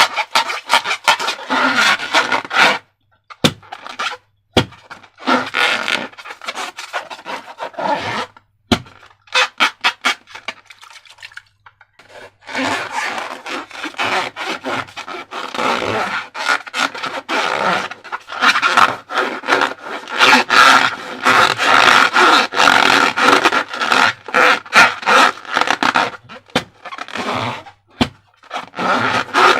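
Slime being squeezed and worked, a dense run of sticky crackles and squelches. It breaks off twice, briefly about three seconds in and for several seconds from about eight seconds in.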